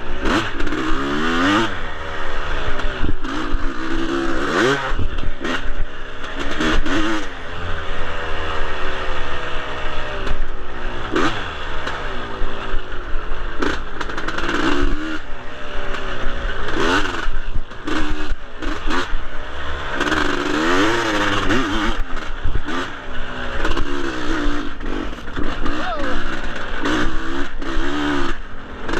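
Husqvarna dirt bike engine under load, its pitch rising and falling every second or two as the throttle is opened and closed, with occasional sharp knocks from the bike over rough ground.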